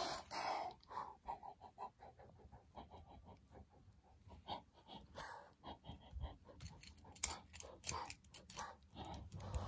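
A person making breathy animal noises with the mouth for toy animals: a short hiss at the start, then quick rhythmic panting for about two seconds, then scattered clicks and breaths.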